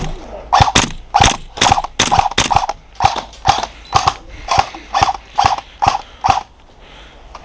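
Airsoft rifle fired in single shots, about a dozen, roughly two a second, each a sharp crack with a short ring. The firing stops about six and a half seconds in.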